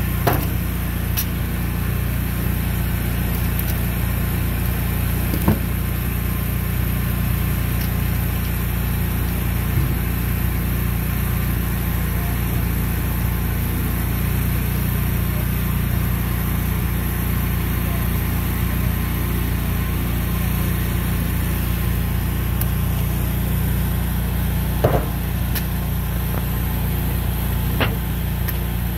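A gasoline pressure washer's engine running steadily at a constant speed, with a few faint knocks.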